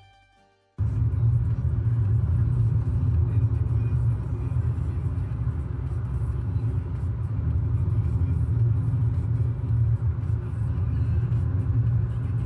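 Steady low rumble of a car on the move, cutting in abruptly about a second in.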